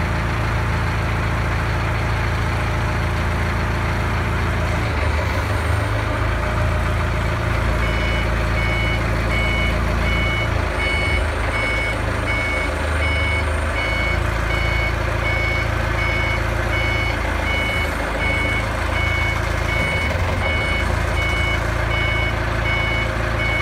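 A heavy vehicle engine running steadily with a low, loud rumble. From about eight seconds in, a reversing alarm beeps at an even pace.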